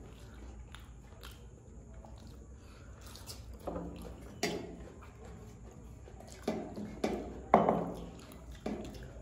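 Two people eating fried rice by hand from steel thalis: quiet chewing and soft clicks of fingers picking at the metal plates. From about four seconds in come half a dozen brief vocal sounds.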